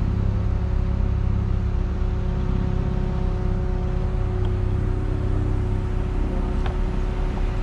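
A truck engine running steadily: a low rumble with a faint steady whine over it.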